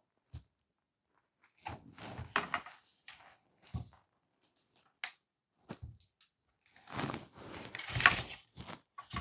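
Handling noise from a soldering stand with flexible arms and alligator clips: scattered clicks and knocks, with two stretches of rustling and scraping, one about two seconds in and a longer one near the end.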